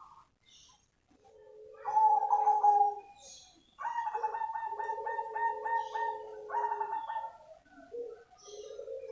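Black 'cemani' zebra dove (perkutut) cooing in full song: a phrase that opens with a low coo and a higher note, then a quick pulsing trill of several rapid beats, then low coos, with the next phrase starting near the end.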